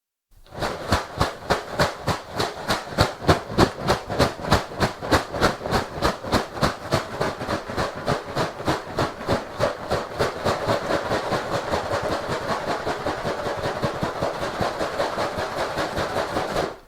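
Full cardboard box of corn flakes in a plastic inner bag being shaken back and forth, the flakes rattling at about three shakes a second. About ten seconds in the shaking speeds up into a faster, more even rattle.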